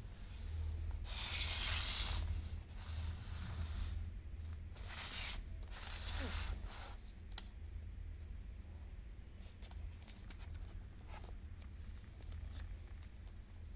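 iPad Pro box and paper-and-plastic packaging being handled: three scraping, rubbing rustles in the first seven seconds, then light clicks and taps.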